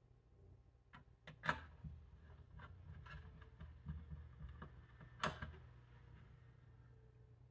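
Scattered light clicks and knocks over a low steady hum, with two louder knocks, one about a second and a half in and one about five seconds in.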